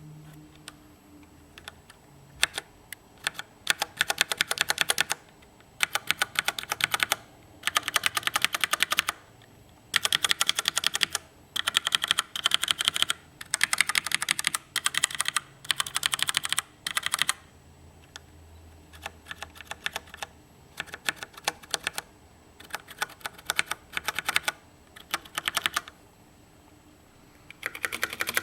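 Typing on a CM Storm Quickfire Rapid mechanical keyboard with Cherry MX Brown switches. The keys clack rapidly in runs of a second or two, with short pauses between.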